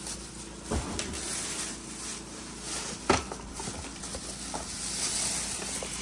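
Packaging rustling as fan parts are pulled from the box and unwrapped, with two knocks, about one second and three seconds in.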